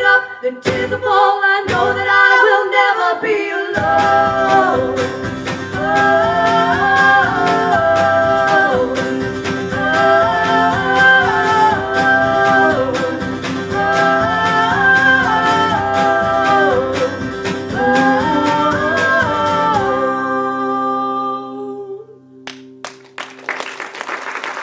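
Live singing over steadily strummed guitar, the song ending about twenty seconds in with the last chord ringing out, then applause starting near the end.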